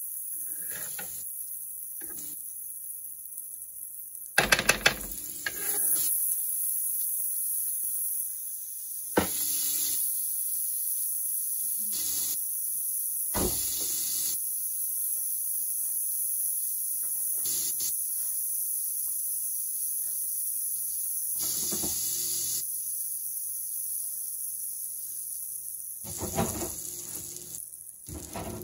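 Margarine sizzling in a griddle pan under a frying quesadilla, a steady hiss. A few clatters and knocks of handling break in, the loudest about four and a half seconds in.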